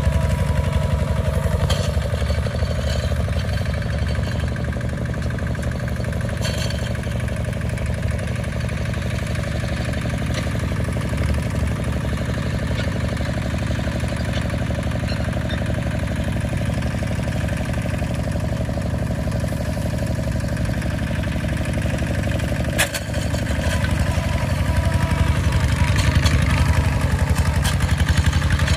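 Single-cylinder diesel engine of a Kubota RT140 two-wheel walking tractor running steadily under load while it pulls a plow through the soil. About three-quarters of the way through it dips briefly with a click, then runs a little louder.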